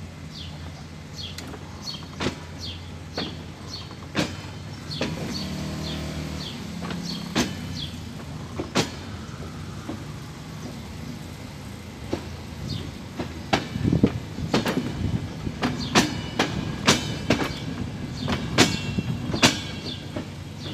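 Passenger train rolling slowly past close by: its wheels click over the rail joints, about once a second at first and faster and louder near the end, over a steady low rumble.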